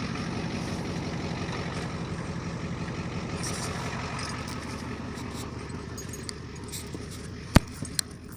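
Yard wrecker truck's engine running steadily at low revs, with a sharp click near the end followed by two fainter ones.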